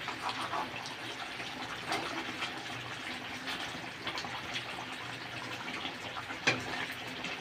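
Chicken curry simmering in a kadai on a gas stove while a spatula stirs and scrapes through the thick gravy, with small scattered clicks and one louder clack about six and a half seconds in.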